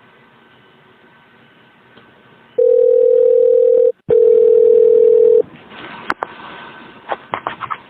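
Telephone line tone heard over the phone line: a steady low beep held a little over a second, then after a very short break a second one of the same length, followed by a few sharp clicks near the end.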